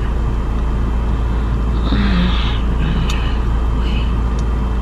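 Car idling, heard from inside the cabin as a steady low rumble.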